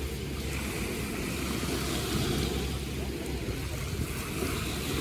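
Steady wind on the microphone, a low rumble, mixed with the wash of beach surf.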